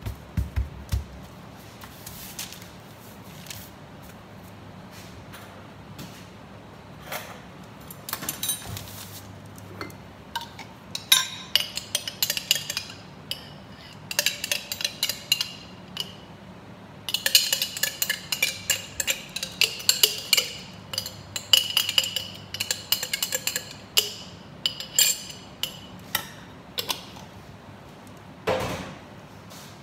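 A metal spoon clinking and scraping against a small glass jar in quick runs of clicks as tomato sauce is scooped out, over a faint steady low hum.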